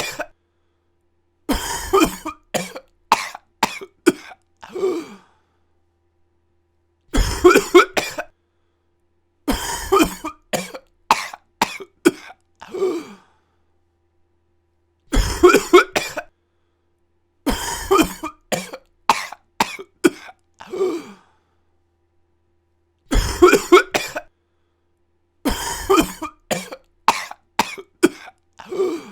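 A person coughing in fits: a hard cough, then a run of about five shorter coughs that trail off. The same fit repeats about every eight seconds, with dead silence between.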